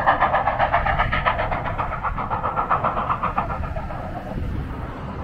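Steam locomotives 89 (a 2-6-0) and 90 (a 2-10-0), double-heading a freight train, exhausting in rapid, rhythmic chuffs as they work hard pulling away. The chuffing fades toward the end as the train draws off.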